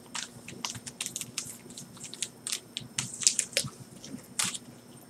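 Foil Yu-Gi-Oh! booster packs crinkling as hands shuffle and spread them out, a string of irregular short crackles.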